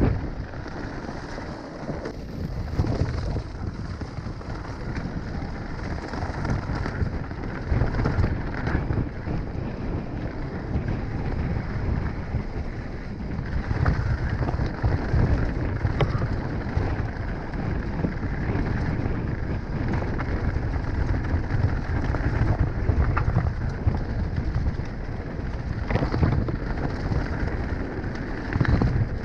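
Mountain bike rolling fast down a rocky gravel track: a steady rumble and rattle of tyres on loose stones, with short knocks from the bike, under wind buffeting the microphone.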